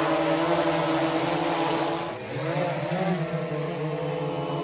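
Quadcopter drone's propellers buzzing steadily, with a short dip about two seconds in, after which the pitch wavers as the motors change speed.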